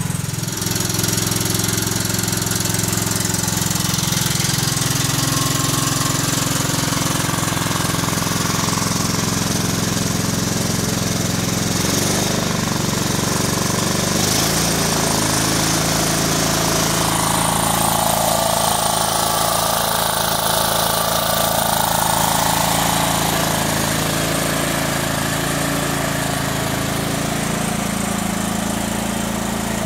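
Kohler Command CH16S engine in a Cub Cadet 2166 garden tractor running steadily, warming up after a cold start.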